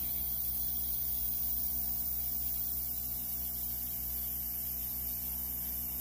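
Airbrush compressor running with a steady hum while compressed air hisses from the airbrush nozzle, blowing air only to push wet alcohol ink across paper.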